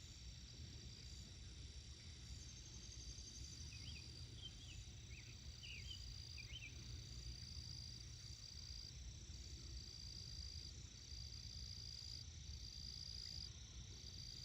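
Faint insects trilling in high, steady runs a second or two long, with a few short bird chirps about four to seven seconds in, over a low rumble.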